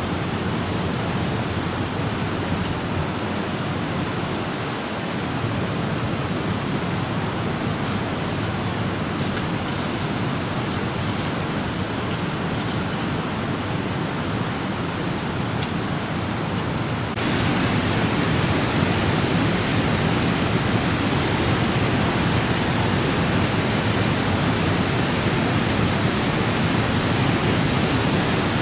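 Steady rushing of river water, an even hiss with no breaks, which steps up abruptly louder about two thirds of the way through.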